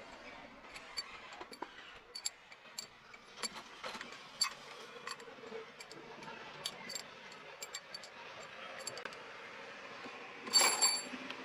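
Steel pushrods of a Nissan UD NE6 diesel engine clinking against each other and the valve gear as they are pulled from the cylinder head and gathered in a hand: scattered light metallic clicks, with a louder rattle near the end.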